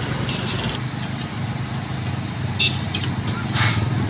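Road traffic going by: motor vehicle engines running steadily, with a few short clicks and a brief hiss near the end.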